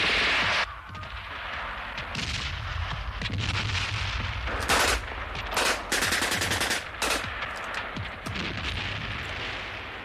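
Light machine-gun and rifle fire. A dense volley cuts off less than a second in, followed by scattered shots and crackle, with several short, loud automatic bursts in the middle.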